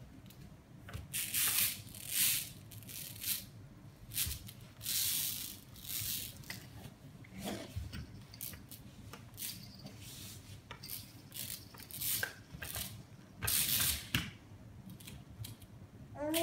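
A sticky lint roller rolled across a foam play mat, its adhesive tape peeling off the foam in irregular crackling, ripping bursts, the longest about five seconds in and about fourteen seconds in.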